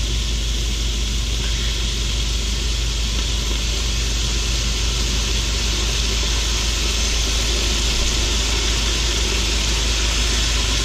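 Fried fish pieces and pineapple slices sizzling steadily in a hot frying pan as sweet chili sauce is poured in, over a steady low hum.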